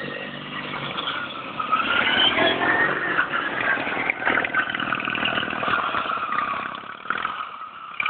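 Small riding lawn mower engines running at racing speed; one mower passes close by, louder for a few seconds from about two seconds in, its engine pitch rising and falling as it goes.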